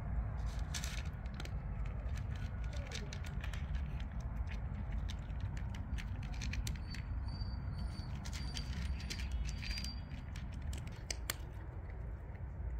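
Cat eating dry kibble from a plastic tray: a steady run of crisp crunching clicks as it chews.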